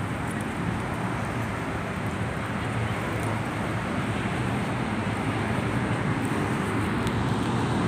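Steady road traffic noise: an even, unbroken wash of vehicle sound.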